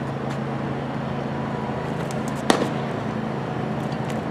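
A pitched baseball smacks into a catcher's mitt with one sharp pop about two and a half seconds in, over a steady low mechanical hum.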